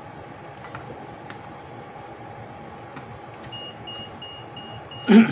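Five short, high electronic beeps in quick succession over a steady faint tone, then a loud, sudden knock just after the beeps.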